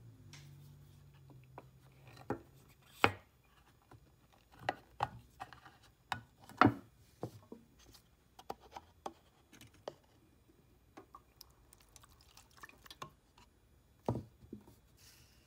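Scattered clicks and knocks of small tools, a metal can and a plastic cup being picked up and set down on a workbench, the loudest about three and seven seconds in and another near the end.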